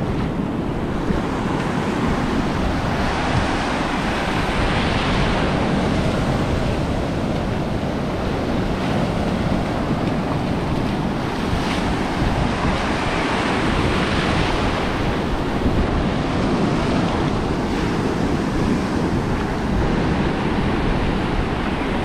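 Ocean surf breaking and washing up the shore, a steady loud rush, with wind buffeting the microphone.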